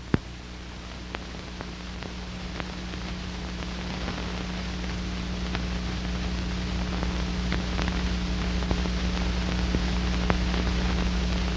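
Steady soundtrack hiss with a low hum and scattered faint clicks and crackles, slowly growing louder: the noise floor of an old black-and-white film transferred to VHS.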